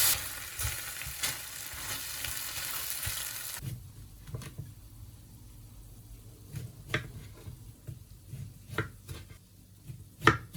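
A steady hiss that cuts off about three and a half seconds in, followed by a handful of light clicks and knocks of kitchen utensils and dishes, the sharpest one near the end.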